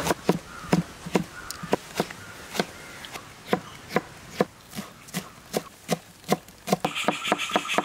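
Chef's knife slicing onion, green capsicum and leafy greens on a plastic cutting board: a run of sharp knocks of the blade on the board, about three a second, closer together near the end.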